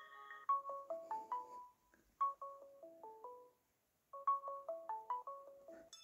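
Ringtone preview playing from a Samsung Galaxy S3 Mini's speaker. One tone cuts off about half a second in and a new one starts: a tune of short struck notes stepping downward. It plays twice, with a brief silent gap between, and is cut off just before the end as the next tone begins.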